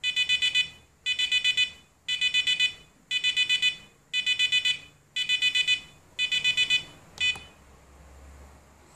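LED cube desk clock's alarm beeping: short bursts of about five quick high-pitched beeps, repeating about once a second, seven times, then a single last beep about seven seconds in before it stops.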